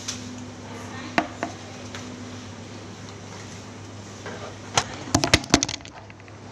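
Sharp knocks and clicks over a steady low hum: two single clicks a little over a second in, then a quick run of about six loud knocks about five seconds in.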